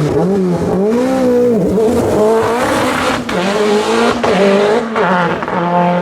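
Rally car engine under hard acceleration, its pitch climbing and dropping back several times as it shifts gears and lifts off, with a sharp break about three seconds in.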